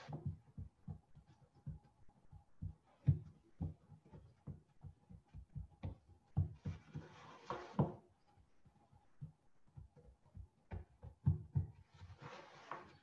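Hands pressing pie crust dough with the heel of the hand against a floured countertop: soft, irregular dull thumps several times a second, with a couple of brief swishes.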